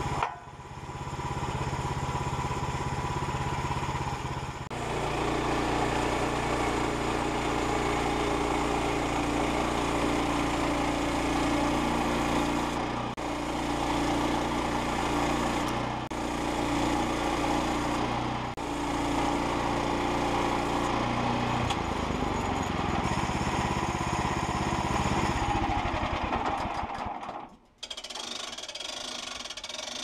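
Portable band sawmill's gas engine running under load as the band blade saws a board off a squared log. The sound dips briefly a few times, and near the end it cuts out, giving way to a quieter mechanical whirr.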